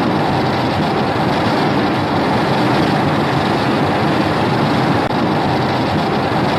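Godzilla's atomic breath sound effect in the Showa-era style: a loud, steady hissing roar that starts abruptly after a brief silence and holds unchanged for about six seconds.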